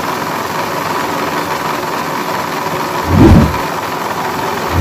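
Small electric motor running a miniature belt-driven water pump, a steady hum with a thin whine. Two brief low rumbles sound about three seconds in and again at the end.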